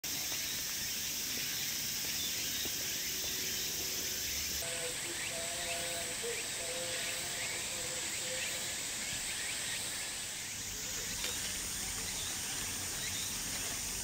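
Outdoor ambience dominated by a steady high-pitched drone of insects, which shifts in pitch twice, with a few faint bird calls.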